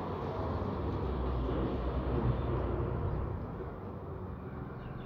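Road traffic: a motor vehicle passing, its engine hum and road noise loud at first, then fading after about three and a half seconds.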